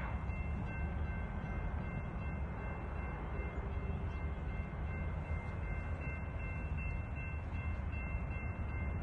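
Steady low rumble, as of wind buffeting a phone's microphone outdoors, with three faint, steady high-pitched tones running over it.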